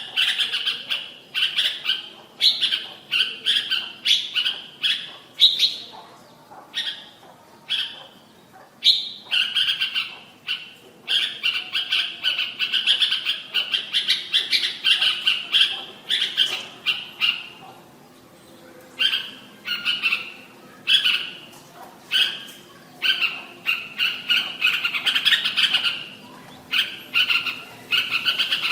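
Red-whiskered bulbul singing: quick runs of short, chirpy notes repeated almost without pause, broken by a couple of brief lulls.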